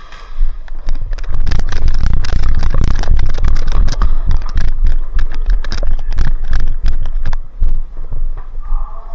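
Running footfalls and loadout gear jostling against a body-worn camera: heavy irregular thuds with many sharp clicks and rattles, starting about a second in.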